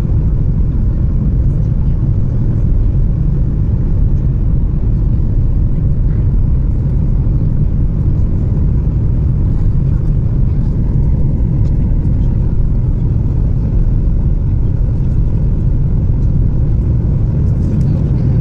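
Steady low cabin roar of a Boeing 737 MAX 8 in flight, engine and airflow noise heard inside the cabin, its level even throughout.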